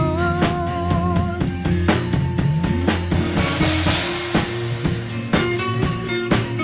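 Live gospel band playing: drum kit keeping a steady beat under electric bass, with a held, wavering melody line in the first second and a half and a cymbal swell around the middle.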